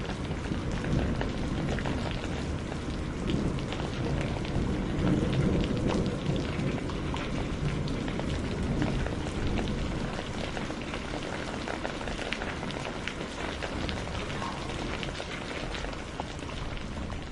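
Steady rain, a dense patter of drops hitting a surface, with a low rumble of thunder that swells in the middle.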